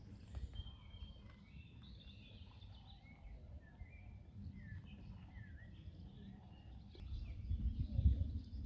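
Small birds chirping and singing in short, quick calls, over a low rumble that grows louder near the end.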